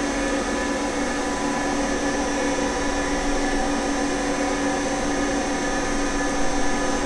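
CNC vertical milling machine cutting a slot in a metal block with an end mill under flood coolant: the spindle and cut give a steady whine of several held tones over an even spray hiss.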